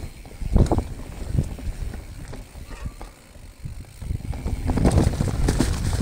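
Specialized Status 160 full-suspension mountain bike ridden along a dirt trail: tyres rumbling over the ground, with knocks and rattles from the bike and wind buffeting the microphone. Two sharp knocks come in the first second and a half, and the rumble grows louder and rougher about four seconds in.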